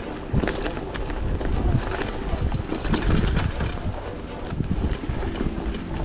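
Wind rumbling on the microphone of a camera mounted on a moving bicycle, with irregular knocks and rattles from the bike riding over an uneven path.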